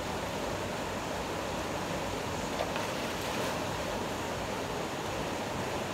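Mountain stream rushing steadily over rocks: a constant, even wash of water noise.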